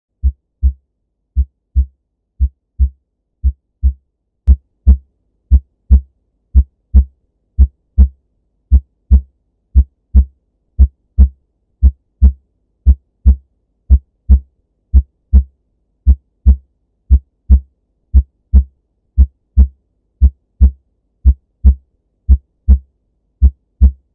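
Normal human heart sounds: a steady 'lub dub' of paired thumps, the first sound (S1) from the AV valves closing and the second (S2) from the semilunar valves closing, about one beat a second. The beats get louder about four seconds in.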